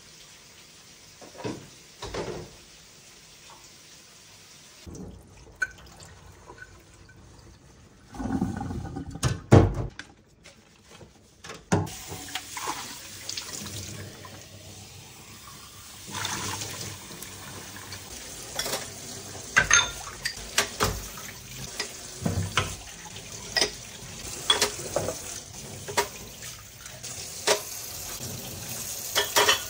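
Kitchen sink tap running while dishes are washed, with frequent clinks and knocks of dishes and utensils. A few separate knocks come first, and the water runs steadily for the second half.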